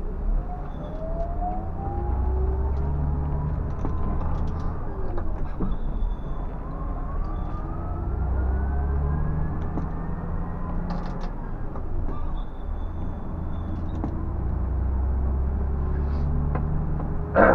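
Scania bus engine and drivetrain running under way: a steady low rumble, with a whine that rises in pitch twice as the bus gathers speed. A sharp click comes at the very end.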